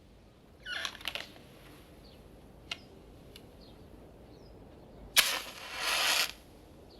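Scattered sharp cracks and pops: a quick cluster about a second in, single small ticks near three seconds, then a louder crack about five seconds in, followed by a hiss lasting about a second.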